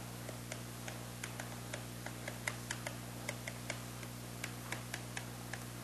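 Faint, irregular light ticks, several a second, over a steady low hum in a quiet room.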